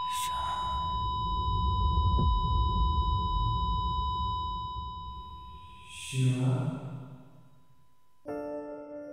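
A steady high electronic tone holds over a man's breathing through an oxygen mask and a low rumble that swells and fades in the first few seconds. About six seconds in he lets out a long, voiced groaning sigh. Near the end the tone cuts off and soft piano music begins.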